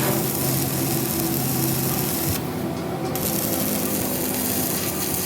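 A power tool or workshop machine running steadily: a low electric hum with a rough rubbing noise over it, the hum easing off about two seconds in.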